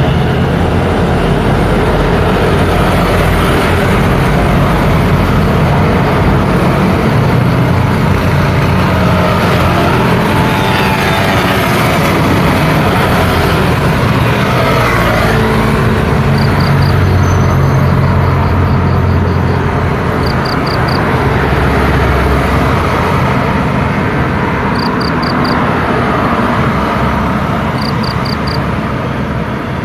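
Street traffic of motor scooters and cars passing close by, a steady mix of engines running and road noise. In the second half, short high beeps come in quick groups of three or four every few seconds.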